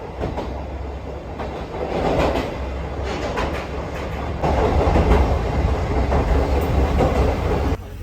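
Okuizumo Orochi sightseeing train running on the rails: a steady low rumble with repeated clicks of the wheels. The sound cuts off abruptly near the end.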